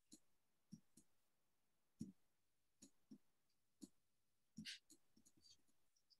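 Near silence broken by faint, scattered computer mouse clicks, about nine in six seconds, irregularly spaced, from the mouse buttons pressed and released while lines are drawn in a paint program.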